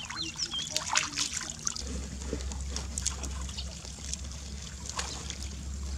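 Water trickling and splashing off hands rinsing a skinned mouse carcass in muddy water. About two seconds in this gives way to a steady low rumble with scattered small clicks.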